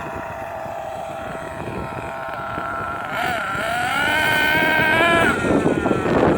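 Losi 8IGHT-T radio-controlled truggy's motor running at high speed. The pitch holds steady, dips briefly about three seconds in, climbs a second later as it speeds up, then drops away near the end into rough noise.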